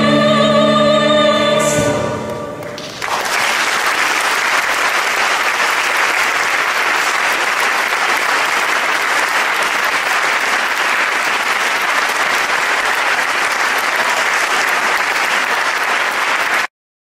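Mixed gospel choir holding the song's final chord, which fades out about two seconds in, followed by audience applause that runs steadily until it cuts off suddenly near the end.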